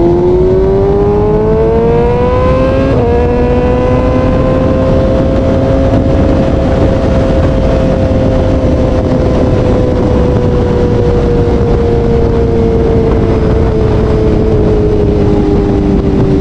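BMW M1000R's 999 cc four-cylinder engine accelerating hard, rising in pitch until an upshift about three seconds in, then pulling at high revs with a slow rise and a gradual fall in pitch. A steady rush of wind noise runs underneath.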